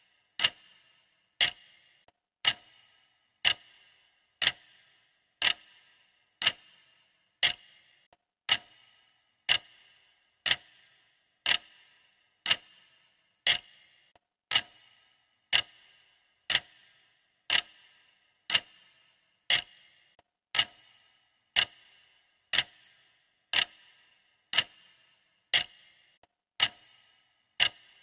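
Clock ticking steadily at one tick a second, each tick a sharp click with a short ring after it.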